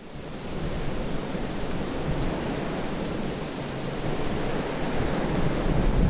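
Strong wind blowing over the microphone: a steady rushing noise, heaviest in the deep end. It fades in over the first second and swells in gusts near the end.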